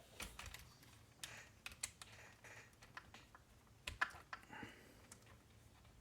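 Faint, irregular small clicks and taps of small parts being handled, as an RC car's driveshaft and its yoke screw are worked into place by hand. The two sharpest clicks come about two and four seconds in.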